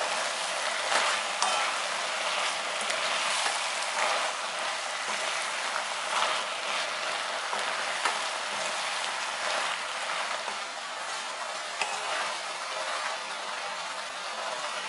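Zucchini stir-fry with onion and chili peppers sizzling steadily in a frying pan while a spatula stirs it, with a few sharp scrapes and knocks of the spatula against the pan.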